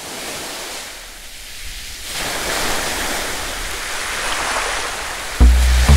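Start of the show's intro: a steady rushing noise that swells louder about two seconds in, then deep bass notes of the theme music come in shortly before the end.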